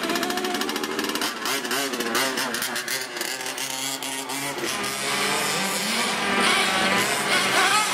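Radio-controlled car motors whining, their pitch repeatedly rising and falling as they are throttled up and down, with a fast buzzing rattle in the first couple of seconds.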